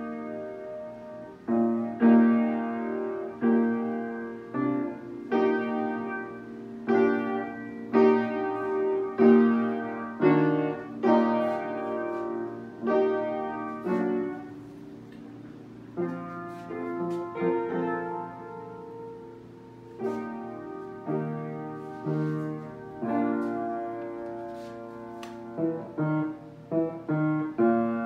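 Solo piano music: chords struck roughly every second or so and left to ring, with quicker notes near the end.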